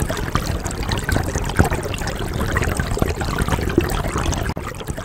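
Water trickling and gurgling: a steady run of many small splashes. It eases off near the end.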